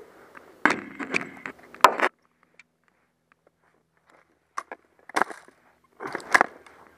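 Rustling and clattering close to the microphone in three irregular bursts, the longest about a second in. It is typical of a player moving through brush with gear knocking about.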